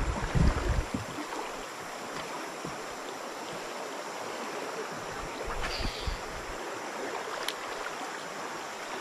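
Steady rush of flowing river water around a wooden boat, with low rumbles of wind on the microphone in the first second and again about six seconds in.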